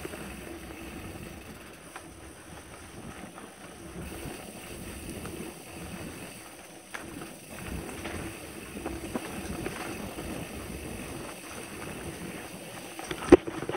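Mountain bike rolling fast down a dirt singletrack: tyres rumbling over the dirt while the bike rattles and clicks over bumps, with one sharp loud knock near the end.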